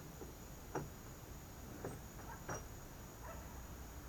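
A few short metallic clicks and scrapes, about one a second, from a wrench and pliers working nuts and washers on a threaded steel axle in a PVC kayak cart. Behind them is a steady high-pitched insect chorus.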